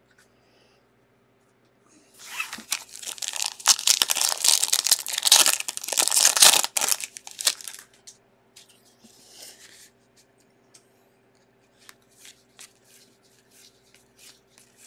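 Foil wrapper of a baseball card pack being torn open and crinkled, a dense crackling tear lasting about six seconds, starting about two seconds in. After it come faint clicks and rustles as the stack of cards is handled.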